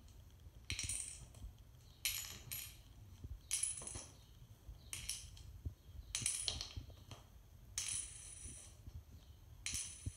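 Pennies dropped one at a time into a small red plastic tray, each landing with a short, bright clink and a brief jingle. About eight drops, spaced unevenly every one to two seconds.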